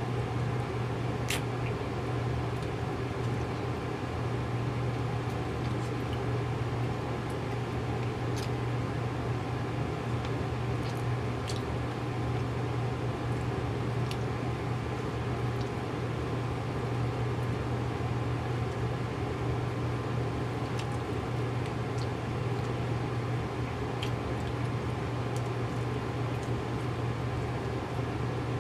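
Microwave oven running as it heats a rack of baby back ribs: a steady low hum with fan noise, and a few faint ticks from the cooking food.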